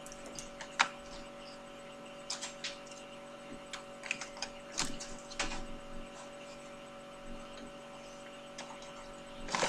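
Scattered light clicks and taps of small objects being handled, over a steady electrical hum.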